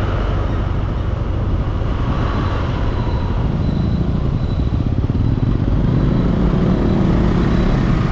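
Motorbike riding through city traffic: its engine running and steady road noise, with other vehicles close by. A low hum grows a little louder in the second half.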